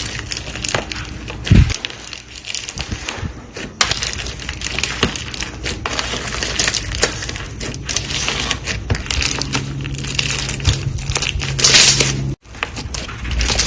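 White slime being mixed and squished by hand, with dense sticky clicking and crackling. The sound cuts out for a moment near the end, then resumes.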